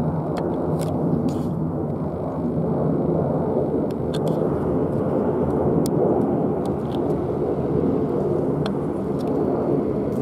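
Boeing 737-800 jet airliner climbing out overhead, its CFM56-7B turbofan engines giving a steady, even rumble.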